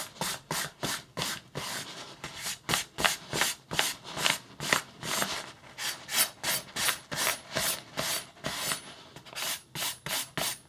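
Yanagiba knife blade stropped on folded newspaper: a rapid run of rubbing strokes at about three a second. This is newspaper stropping, the finishing step after whetstone sharpening.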